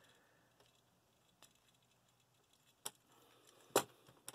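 Hard plastic parts of a Transformers War for Cybertron Springer action figure clicking as they are folded and pegged together by hand: a few separate sharp clicks, the loudest near the end.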